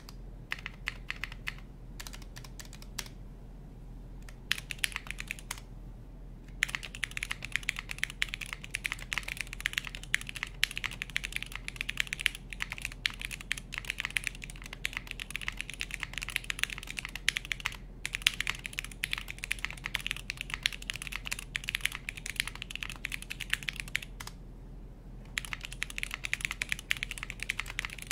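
Typing test on a TKD Cycle 8 tenkeyless mechanical keyboard. A few scattered single keystrokes come first, then fast continuous typing from about six seconds in, broken by a brief pause in the middle and a second short pause near the end.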